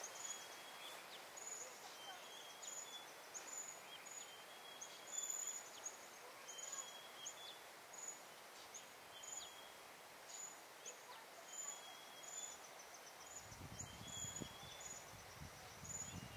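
A bird calling over and over in short, high chirps, about one or two a second, over a faint outdoor hiss. A low rumble comes in near the end.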